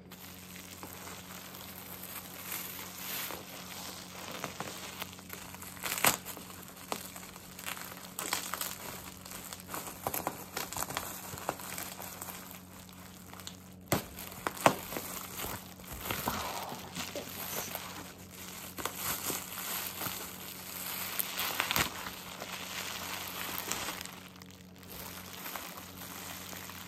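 Bubble wrap crinkling and crackling as it is handled and unwrapped by hand, in fits and starts with sharper crackles here and there.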